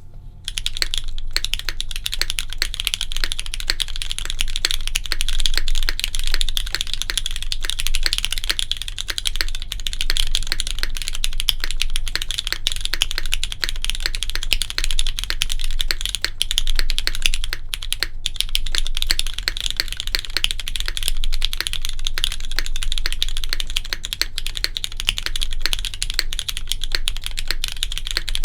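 Continuous fast typing on a hid.n Midway60 mechanical keyboard with broken-in, lubed Cherry MX Black linear switches on a polypropylene plate and GMK keycaps, a dense stream of clacky keystrokes. The typing starts about a second in and breaks off briefly about two-thirds of the way through.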